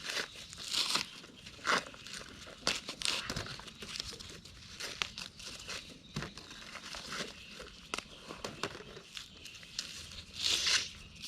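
Dry corn leaves and husks rustling and crackling as ears of corn are picked by hand, in irregular bursts with a longer rustle near the end.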